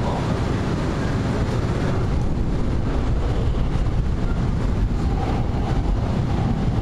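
Steady low rumble and rushing noise of a moving train carriage, heard from inside.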